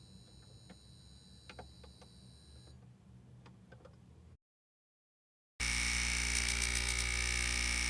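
Neon light buzzing: a faint electrical hum with a thin high whine and a few faint ticks, which cuts off a little past halfway. After about a second of silence a much louder neon buzz starts suddenly: a steady low hum with a strong high whine over it.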